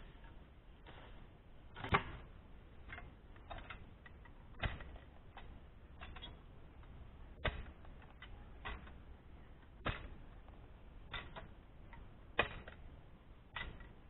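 Hand digging in soil, a hoe and then a clamshell post-hole digger striking and scraping the ground. It comes as sharp, uneven knocks one to three seconds apart, the loudest about two seconds in and near the end.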